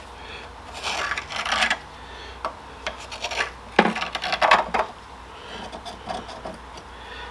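A hand tool scraping the metal surface of the Saab 9-3's mid shaft to clean off buildup. There are two bouts of quick back-and-forth strokes, about a second in and again near the middle, with a few light knocks between.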